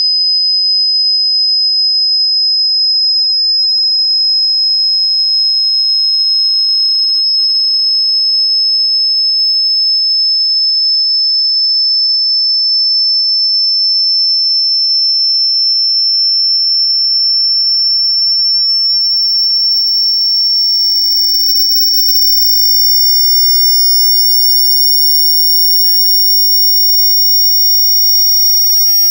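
A single pure sine test tone, very high-pitched, held at a steady level and gliding slowly and smoothly upward in pitch: part of a slow frequency sweep used for testing loudspeakers.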